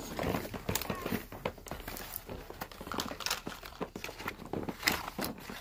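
Cardboard toy box being pulled open and handled, with irregular crinkling, scraping and crackling of cardboard and packaging.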